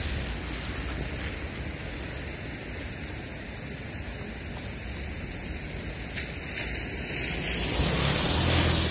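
Steady hiss of a wet street. Near the end a car drives past close by, its tyres hissing on the wet asphalt and growing louder as it comes near.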